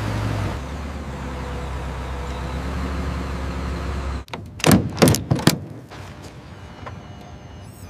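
Bulldozer engine running with a steady low rumble, cutting off abruptly about four seconds in. Then four loud, sharp noises in quick succession, followed by a quieter background hum.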